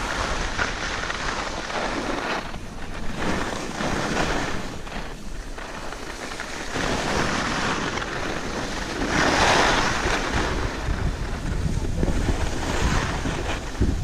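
Skis hissing and scraping over packed, groomed snow, with wind rushing over the microphone; the rushing rises and falls in swells and is loudest about nine to ten seconds in.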